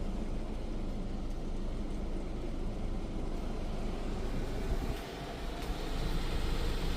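Ryko Softgloss MAXX automatic car wash running, heard from inside the car: a steady low rumble, with a brighter hiss building from about five seconds in.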